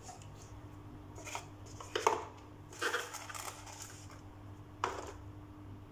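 A few short clinks and knocks of metal tools and fittings being handled on a stone countertop: about four sharp strikes, spaced a second or so apart, over a faint steady low hum.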